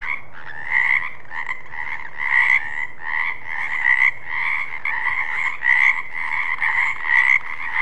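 Frogs croaking, call after call in close, overlapping succession without a break, cutting off suddenly at the end.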